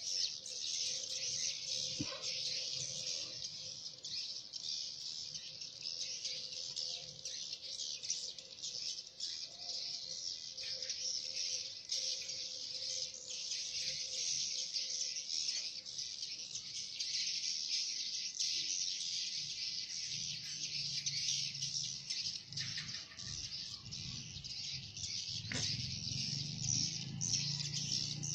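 Dense, continuous high-pitched chattering of many swiftlets around a swiftlet house. A faint low hum comes in after about twenty seconds.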